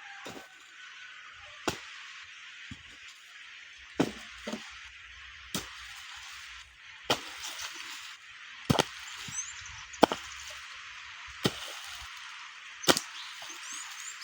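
Repeated chopping blows of a tool, about one every second and a half, over a steady outdoor hiss, with a few faint bird chirps near the end.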